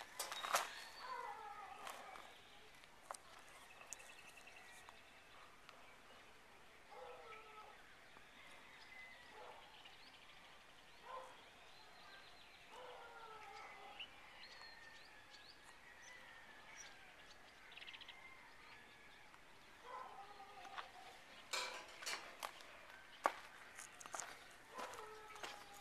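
Faint outdoor ambience of birds chirping and calling now and then, with footsteps crunching on gravel and rubble near the end.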